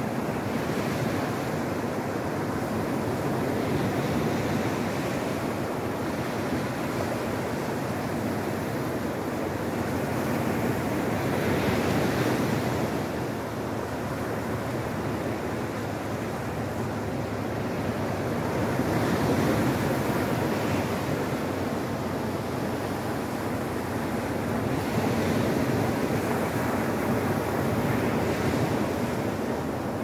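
Sea surf breaking and washing up a shingle beach, a continuous rush of water that swells louder in surges every several seconds as bigger waves come in.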